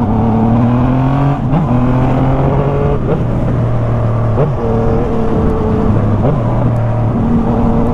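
Yamaha MT motorcycle engine through a Jeskap GP2 aftermarket exhaust, pulling under way. The note rises, changes pitch at a gear shift about a second and a half in, then runs fairly steadily with a couple of brief dips.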